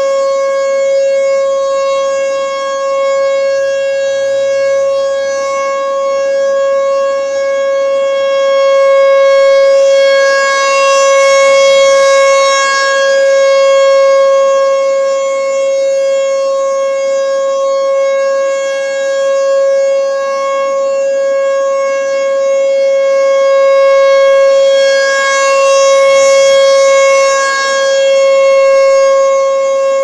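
ASC T-128 rotating outdoor warning siren sounding a steady full-alert tone at one unchanging pitch. It swells and fades over and over as the horn turns.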